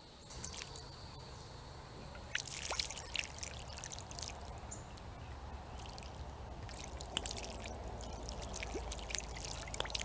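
Flush water pouring from the open end of a PVC condensate drain line onto wet ground, growing from a thin trickle to a steady gush with splashing. This is the air conditioner's drain line being flushed clear after the drain pan and evaporator coil were cleaned.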